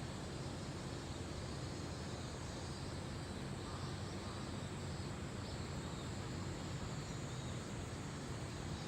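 Steady outdoor background ambience: a low, even rumble with faint high chirping scattered through it.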